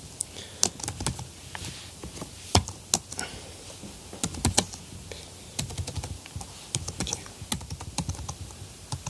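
Typing on a computer keyboard: irregular keystroke clicks in uneven runs, a few louder than the rest.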